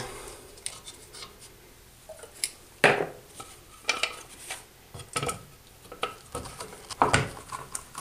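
ABS cement being brushed onto a 3-inch ABS pipe and fitting: irregular light taps, clicks and rubbing of the applicator against the plastic, loudest about three seconds in and again about seven seconds in.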